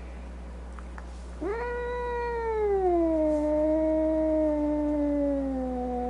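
A domestic cat giving one long, drawn-out yowl starting about one and a half seconds in: it rises sharply, holds, then slides down to a lower pitch and carries on, slowly falling.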